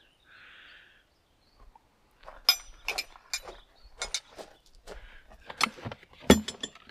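Metal-on-metal clinks and knocks from hand tools and bolts being handled: an uneven string of sharp clinks starting about two seconds in, some ringing briefly.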